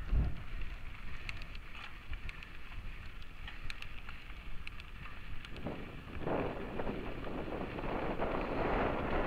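Mountain bike riding over a dry dirt and gravel trail, heard from a camera mounted on the bike or rider: a low rumble of the tyres with scattered small ticks and rattles, and wind on the microphone that grows louder about six seconds in.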